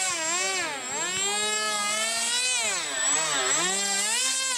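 Motor of an RC Su-37 model jet whining loudly in flight. Its pitch swings up and down over and over as the throttle changes and the plane turns through aerobatic passes.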